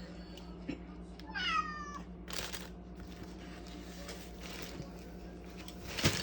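A cat meowing once, a short call about a second in that starts high and falls in pitch. It is followed by a few scattered bursts of noise, the loudest near the end.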